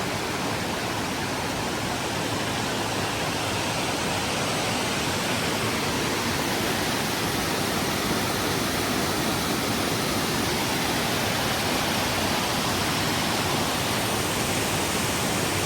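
Steady, unbroken rush of water pouring over a falls, an even roar with no change in level.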